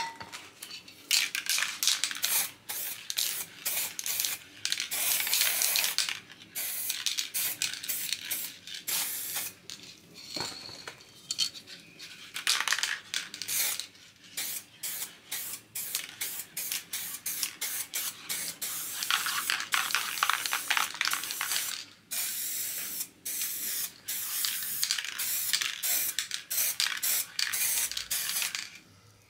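Aerosol spray paint cans hissing in a series of short and longer bursts as paint is sprayed onto a board.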